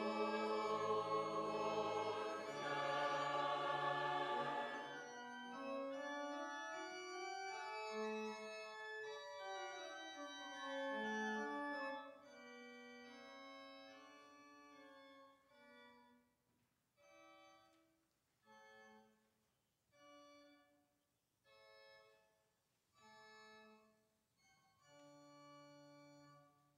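Choir singing with church organ accompaniment, the voices ending about five seconds in. The organ carries on alone: held chords over a moving bass line, then short, separated chords about every second and a half, growing quieter.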